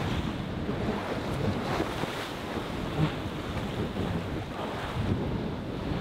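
Wind blowing across the microphone over the wash of sea waves, a steady rushing noise with uneven low gusts.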